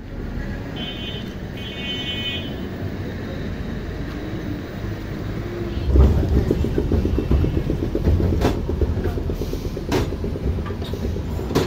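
Road traffic: vehicle engines running close by, getting louder about halfway through, with two short horn beeps about a second in.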